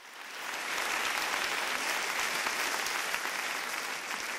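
Audience applauding, a dense steady clatter of many hands that fades in over the first second.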